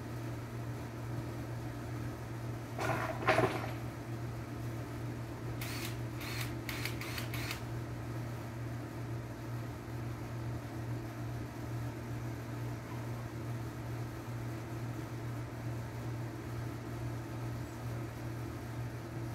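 A steady low machine hum, with one brief louder sound about three seconds in and a quick run of five or six faint sharp clicks a few seconds later.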